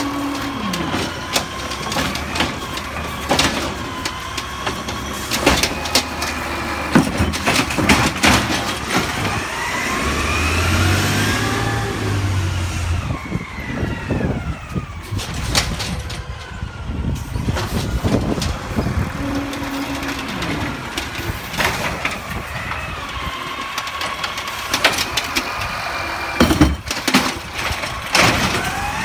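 Autocar garbage truck's diesel engine running and revving up and down as its Amrep automated side-loader arm works. Sharp clanks from the arm and the plastic carts come again and again.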